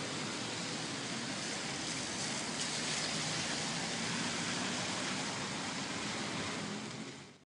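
Steady hiss of rain mixed with traffic noise on wet streets, fading out at the very end.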